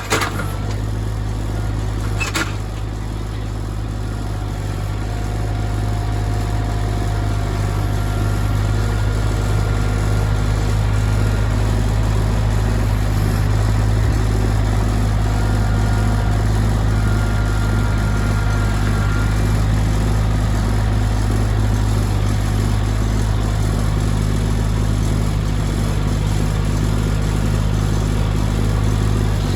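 An engine running steadily at an even speed, with a sharp knock right at the start and another about two seconds in.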